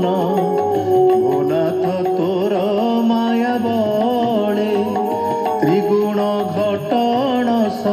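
Indian devotional music with a continuous, chant-like melody that glides and wavers in pitch.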